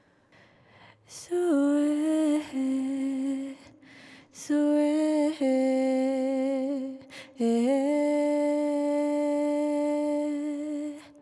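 Wordless humming in the film's score: three long, slow phrases. Each one slides into its note and then holds it, and the last is held for about three seconds before fading.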